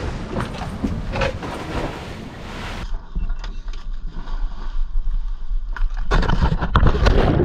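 Wind buffeting the microphone aboard a powerboat under way, with a rushing, rumbling noise. The sound changes abruptly about three seconds in, and the buffeting grows louder in the last second or so.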